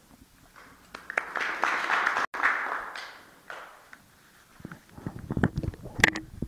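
A short round of applause that builds and fades away over about three seconds. About five seconds in come a run of knocks and rustles from a handheld microphone being handled.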